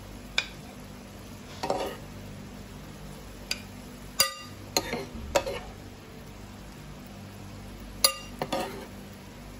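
Metal spoon clinking and scraping against a nonstick frying pan and a ceramic plate while serving seafood marinara: a series of about eight sharp clinks, the loudest two ringing, about four and eight seconds in. A low steady hum runs underneath.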